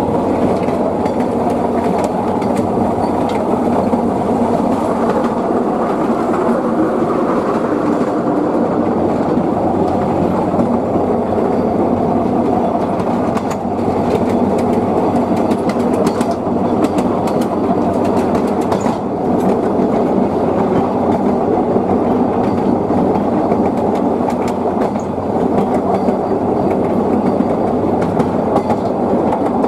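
Narrow-gauge passenger train running along the line, a steady rumble of carriage wheels on the rails with scattered sharp clicks, most of them around the middle.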